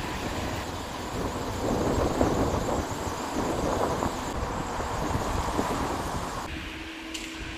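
Traffic noise of cars driving past on a town road, with wind rumbling and buffeting on the microphone.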